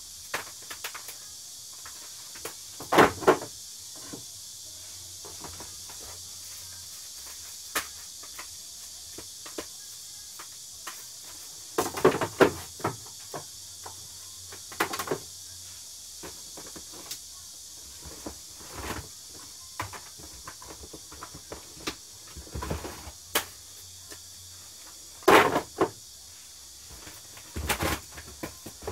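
Plastic cassette tape cases clacking and knocking as they are handled, taken out of a cardboard box and set onto wooden shelves, in scattered irregular clatters with a few louder bunches. A steady high hiss runs underneath.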